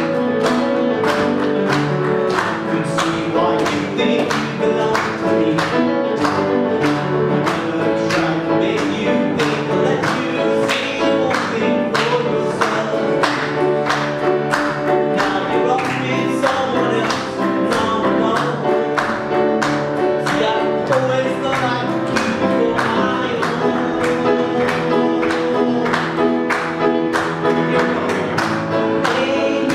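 Live acoustic folk-rock song played by a duo: a strummed acoustic guitar keeps a steady beat of about two strums a second under sustained melody notes and singing.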